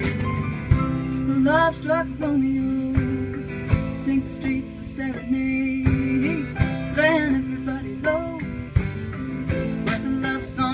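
Live band playing an instrumental break: a lead electric guitar line with bending notes over acoustic guitar, keyboard and drum kit, the drums hitting at a steady beat.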